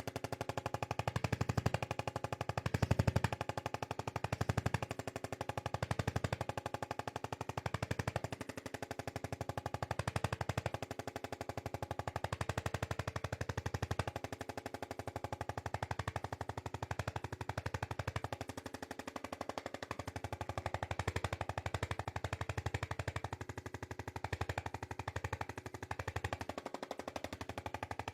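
Percussion massage gun running against the muscles: a very fast, even hammering pulse over a steady motor hum, swelling a little in loudness as it is pressed and moved.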